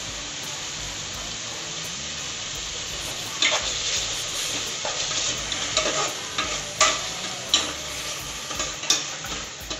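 Onion-and-herb masala sizzling in a pressure cooker, with a steady frying hiss. From about a third of the way in, a metal spoon stirs it, scraping and knocking sharply against the pot's sides about twice a second.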